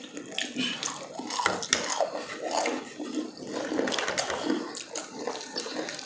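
Eating crispy fried chicken: irregular crackling as the crunchy breading is torn off and bitten, with wet chewing sounds.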